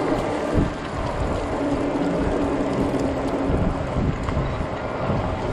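Strong gusty wind buffeting the microphone of a rider on a moving fat-tire e-bike, a dense fluttering rumble with a steady low hum running underneath.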